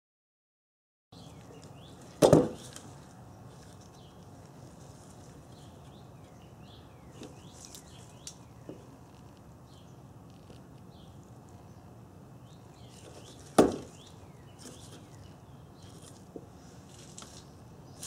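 Two sharp snaps about eleven seconds apart as a wire stripper bites and pulls the insulation off 16-gauge automotive wire, over faint chirping birds.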